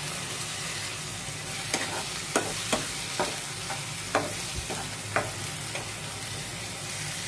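Mushroom curry frying in oil in a nonstick pan with a steady sizzle, while a metal spatula stirs it, scraping and clicking against the pan about half a dozen times in the middle.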